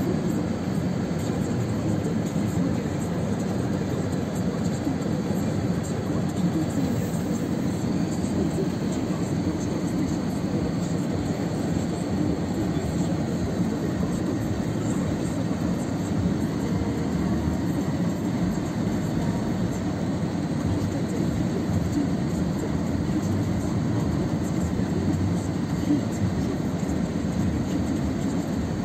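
Heavy lorry's diesel engine running with a steady low rumble as the articulated rig creeps across a snow-covered roundabout, struggling on the slippery surface under the snow.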